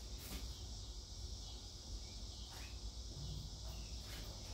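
A steady high-pitched insect chorus with a low background hum, and a few faint light knocks.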